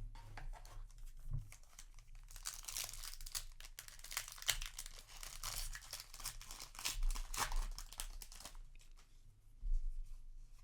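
Foil wrapper of a Yu-Gi-Oh! Rage of the Abyss booster pack being torn open and crinkled: a dense crackle of foil for about six seconds, starting about two seconds in, then quieter handling of the pack and cards.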